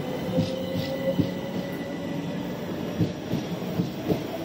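Southern Class 377 Electrostar electric multiple unit rolling along the platform. Its wheels click irregularly over the rail joints, with a faint whine that rises slightly in pitch as the train picks up speed.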